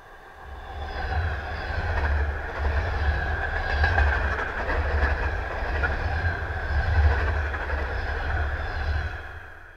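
ER2T electric multiple unit passing close at speed: a steady rumble and rush with repeated wheel clatter over the rail joints. It builds quickly about a second in and fades near the end.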